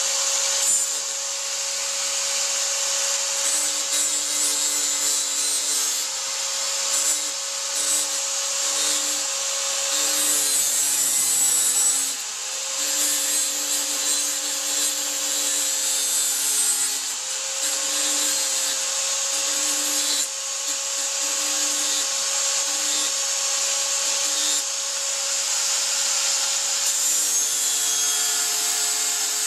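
Handheld angle grinder running at speed with an abrasive disc grinding the teeth of a steel brushcutter blade to sharpen them. It makes a steady high whine over a gritty hiss, with a lower note that comes and goes as the disc is pressed onto and lifted off the teeth.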